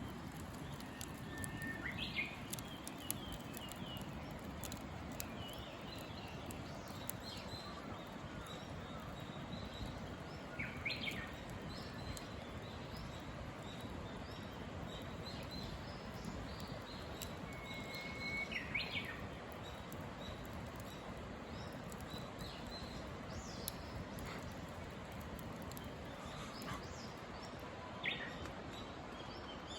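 A wild songbird repeating its song four times, about every eight to nine seconds: a held whistle, then a quick phrase rising higher, with other birds chirping faintly. Under it a steady outdoor hush, with faint crackling of the bonfire.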